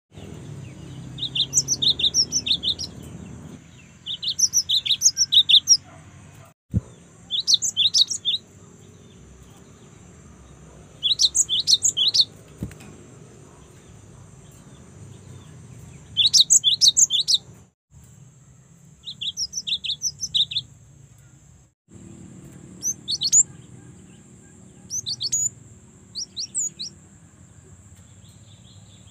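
Young cinereous tit (gelatik batu) calling in quick runs of sharp, high chirps, each run lasting one to two seconds and repeated every few seconds. A steady high-pitched hum continues underneath.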